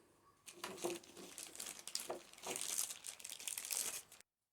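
Crinkling and rustling of packaging as polishing-kit parts are handled, in irregular bursts that stop abruptly near the end.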